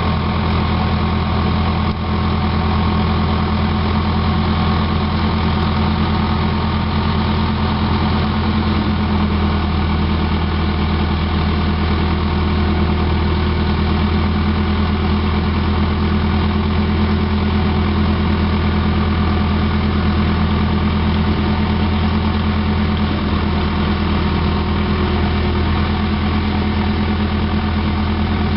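Caterpillar crawler bulldozer's diesel engine running steadily, a deep even hum that holds the same pitch throughout as the dozer tracks slowly across.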